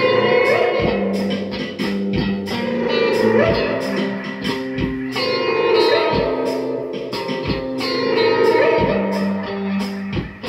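Reggae jam: electric guitar playing over a steady beat, with a bending lead melody at the microphone that comes in several times.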